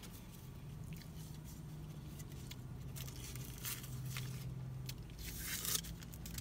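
Close-up chewing of a crispy fried chicken biscuit: soft crunches and wet mouth smacks, over a steady low hum inside a parked car. A short papery rustle comes near the end.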